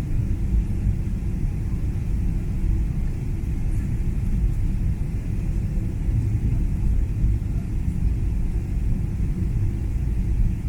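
Steady low rumble of a passenger jet heard from inside the cabin: engine and airframe noise as the aircraft lands or taxis.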